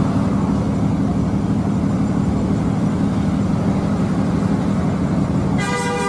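Tour coach's diesel engine running steadily as the bus moves slowly, a heavy low rumble. Near the end a horn sounds briefly.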